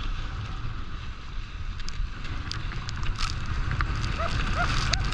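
Wind buffeting the microphone while moving fast over snow, with scattered sharp clicks. About four seconds in, a high squeak starts repeating about three times a second.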